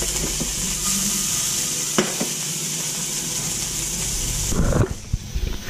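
Flathead fillets sizzling in oil in a non-stick frying pan, with a sharp knock of the pan about two seconds in. Near the end there is a louder clatter, and the sizzling drops away.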